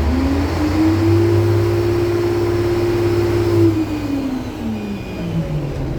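K-700 tractor's MAN diesel engine, slightly warmed up, revved from idle. The pitch rises about half a second in, holds steady at high revs for about two seconds, then falls back to idle near the end.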